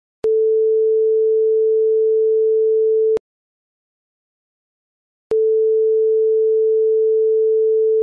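TV buzzer sound effect: a steady, single mid-pitched tone that starts with a click, holds for about three seconds and cuts off, then after a two-second pause sounds again in the same way near the end.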